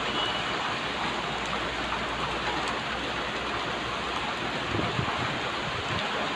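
Heavy rain pouring steadily: a dense, even hiss. A few low thumps come near the end.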